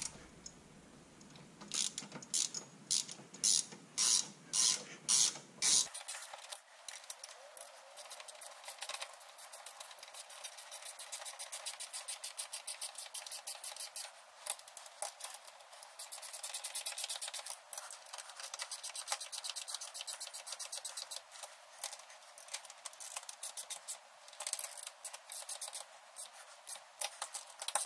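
Ratcheting wrench clicking as nuts are snugged onto brake-bracket T-bolts: a handful of louder, evenly spaced strokes in the first few seconds, then long runs of fast, fine clicks.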